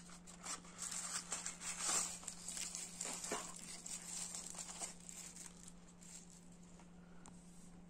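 A small cardboard box being opened and a plastic figurine unwrapped from its thin wrapper: crinkling and rustling for the first five seconds or so, then quieter handling. A steady low hum runs underneath.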